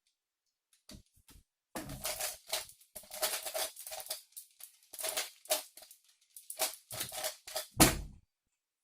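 A Rubik's cube being turned fast, with runs of quick clicking and clacking turns, during a speedsolve. A louder knock comes near the end.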